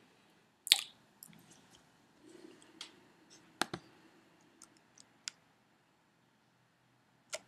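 Scattered clicks of a computer mouse and keyboard: a sharp one about a second in, a quick pair near the middle, a few fainter ones, then a quiet stretch before two more clicks at the end.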